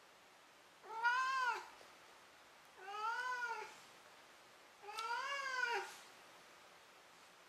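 Tabby-and-white domestic cat meowing three times, about two seconds apart; each meow is just under a second long and rises then falls in pitch.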